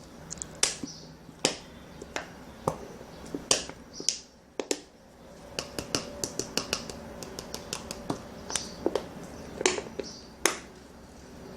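Slime being poured out of its container, giving a run of sharp, irregular sticky clicks and pops that come thickest in the middle to later part.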